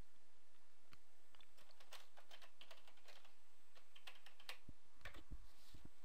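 Computer keyboard typing: an irregular run of key clicks starting about a second in, as a password is typed at a login prompt.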